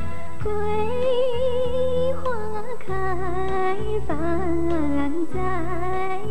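A woman sings a slow Mandarin ballad in long, held notes with vibrato over a sustained instrumental backing. Her voice comes in about half a second in.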